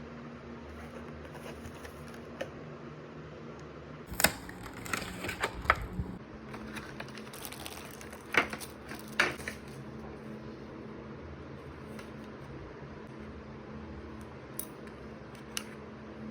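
Scattered clicks and light knocks from handling an Amkette Hush Pro Astra wireless optical mouse, bunched in a quick cluster about four seconds in and two more near the middle, with faint single ticks near the end, over a steady low hum.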